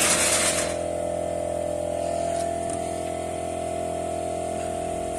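A varnish sprayer's motor running with a steady hum, with a short burst of spray hiss in the first second.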